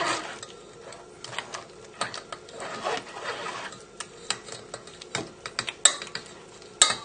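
A spatula scraping and pressing blended celery soup through a mesh sieve into a bowl, with irregular scrapes and small clinks against the sieve and bowl.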